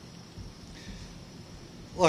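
Faint outdoor background: a low rumble under a steady hiss, the hiss growing a little brighter about a third of the way in.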